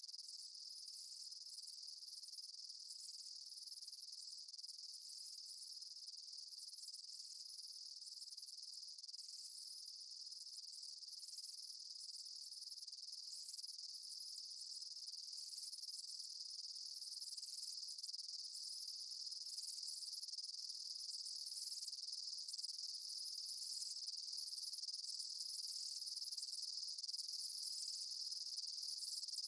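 Summer field ambience of chirping insects: a steady high trill with a pulsing chirp repeating about once a second, faint and slowly growing louder.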